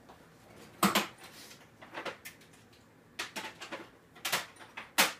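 A string of short, sharp knocks and clatters, about half a dozen, the loudest about a second in and just before the end.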